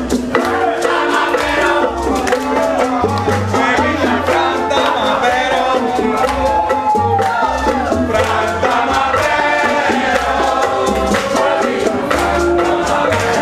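A small live band playing with singing: maracas shaken, bongos and acoustic guitar, in a steady rhythm.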